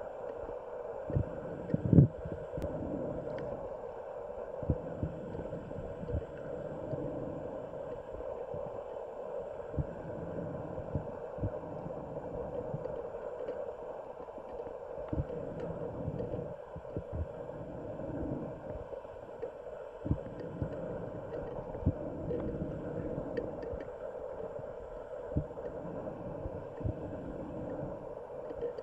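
Muffled underwater sound picked up through a camera housing: a steady low hum with irregular dull thumps and knocks, the loudest about two seconds in.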